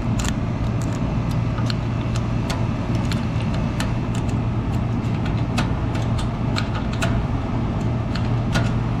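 Irregular small metallic clicks of a tool working inside a Master Lock padlock's keyway as the lock is picked. Under them runs a steady low engine hum.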